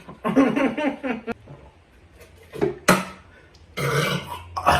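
Men burping: a long belch at the start and another near the end, with a short sharp sound about three seconds in.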